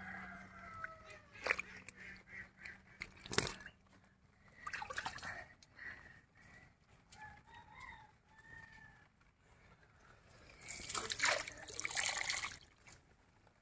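Chickens calling in the background: a falling call at the start and short pitched clucks a few seconds later. Near the end comes a burst of water splashing and dripping.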